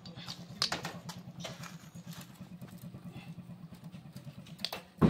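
An engine running steadily in the background, a low hum with a fast even pulse. Over it come occasional light metal clinks as spanners and engine parts are handled, and a loud metallic knock right at the end.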